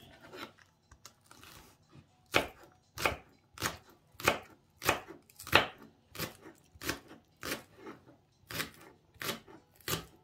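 Kitchen knife slicing spring onions on a wooden cutting board: a couple of seconds of softer handling, then steady cuts, each a sharp knock of the blade on the board, about three every two seconds.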